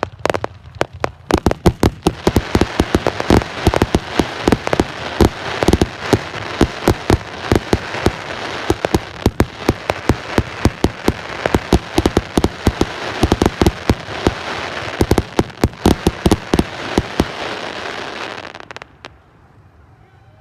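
Fireworks going off in a rapid, dense barrage of bangs over continuous crackling, which stops about two seconds before the end.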